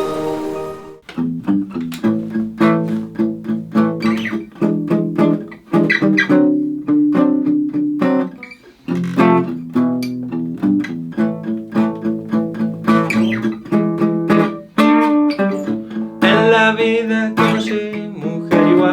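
Acoustic guitar strumming chords in a steady, lively rhythm, starting about a second in, after a ringing chime-like tone fades out.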